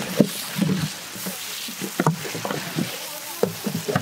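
Long-handled metal spatulas stirring and scraping a heap of chopped cabbage and chicken in a large metal cooking pan, in irregular strokes, over a steady sizzle of frying.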